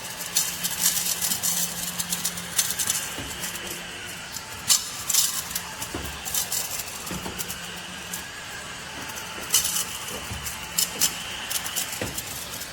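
Mini cordless desktop vacuum cleaner running with a steady motor hum and a thin whine, broken by many sharp clicks and crackles.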